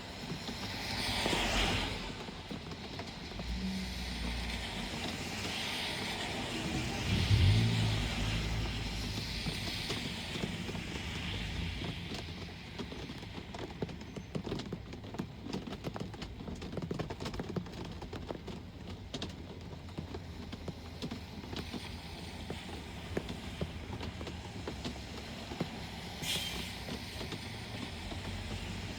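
Rain falling, with road traffic behind it. A vehicle passes about a second in, and a louder, deeper one about seven seconds in. Fine ticking of raindrops runs through the second half, with a brief high hiss near the end.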